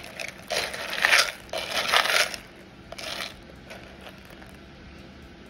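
Dry Peruvian beans rattling and scraping as a hand sifts and pushes them around: three bursts in the first two and a half seconds and a short one about three seconds in.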